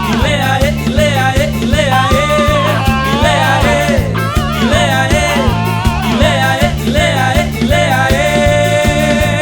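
Band music: an instrumental stretch of an upbeat carnival song, with a steady beat underneath and a lead melody that bends and wavers in pitch.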